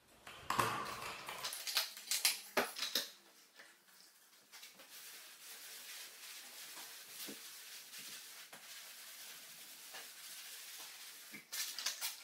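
A few knocks and clatters as a plastic jug of wood cleaner is handled, then a damp cloth scrubbing back and forth over sanded pine floorboards in a steady swishing, wiping off the lye residue. Near the end, water splashes in a plastic bucket as the cloth is dipped.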